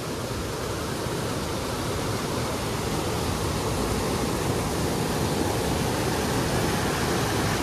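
Waterfall and stream water rushing steadily, slowly getting a little louder.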